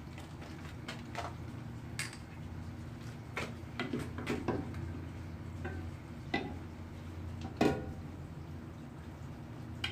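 Light metallic clinks and knocks at irregular intervals, about a dozen, the loudest about three-quarters of the way through, over a steady low machine hum.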